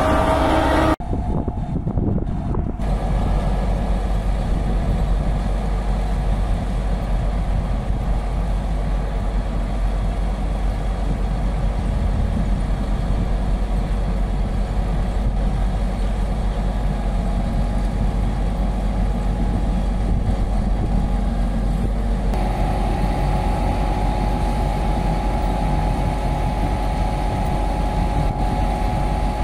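Heavy vehicle engine running steadily with a low hum; about three-quarters of the way through a steady higher tone joins in.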